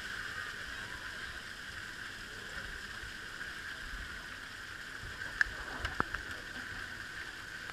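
Steady hiss of running water at a splash play structure, with a few sharp knocks a little past five seconds and again about six seconds in.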